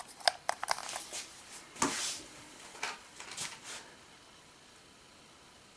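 Light clicking, then two short bursts of a toy RC monster truck's small electric drive and plastic wheels running on a floor, about two seconds in and again around three seconds in; then only faint room tone.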